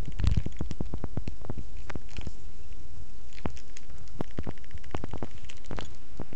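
Phone-microphone handling noise: irregular clicks and crackles at uneven spacing over a steady hiss.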